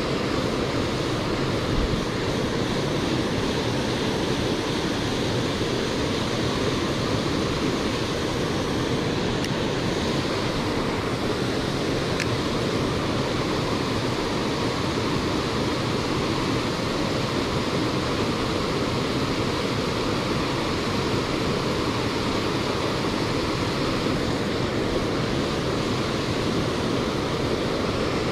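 Mountain creek water rushing, a steady even noise that does not change.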